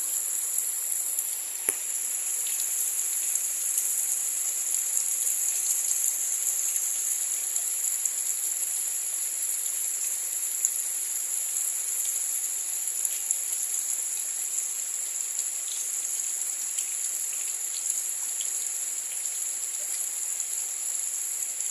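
A steady, high-pitched chorus of insects, such as crickets or cicadas, shrilling without a break over a faint even hiss, with a few small ticks scattered through.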